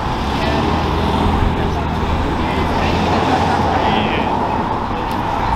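Steady low outdoor rumble with a small crowd's voices murmuring.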